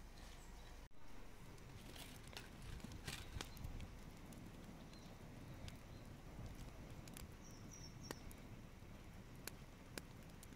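Faint scattered sharp clicks and crackles, clustered in the first few seconds and then single, over a quiet outdoor background. A small bird chirps briefly about seven seconds in.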